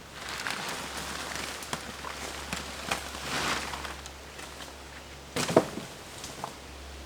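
Dry sticks and leaf litter rustling and crackling as wood is handled in the forest, with scattered small cracks and one sharp knock about five and a half seconds in.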